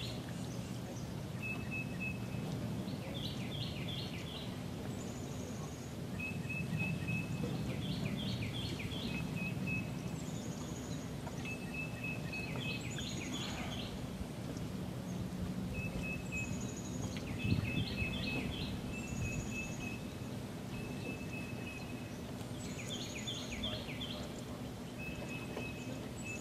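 Songbirds calling over and over: clusters of quick high chirps every two to three seconds, with short steady whistled notes between them. A steady low hum and outdoor rumble run beneath.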